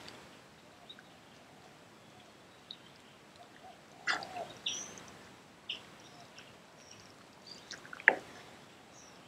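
Birds chirping in short high calls here and there over a faint steady hiss. A wooden spoon knocks against the pan twice, about four and eight seconds in, the second knock the louder.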